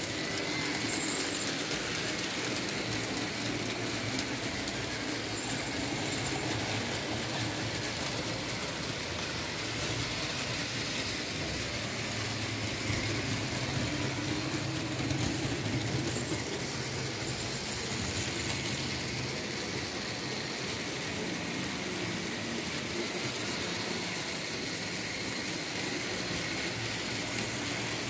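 Märklin H0 model train, a BR 74 steam locomotive pulling open freight wagons, running steadily: the whir of its small electric motor and the rumble of wheels on the track.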